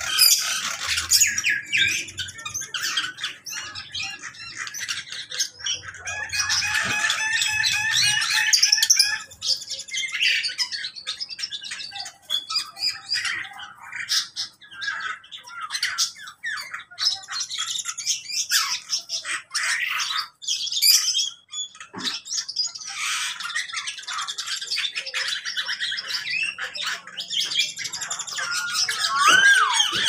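Many caged birds of mixed species in an aviary chirping and calling at once, a dense chatter of overlapping high chirps and calls.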